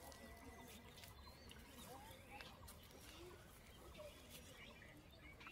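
Near silence: faint outdoor background with a few faint short chirps and small clicks.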